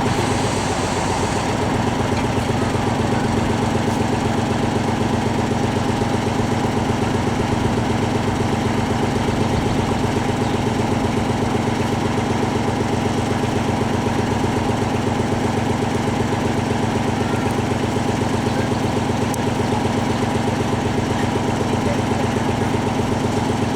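A truck-mounted crane's engine running steadily at idle, with an even rapid throb. A high hiss over it stops about a second and a half in.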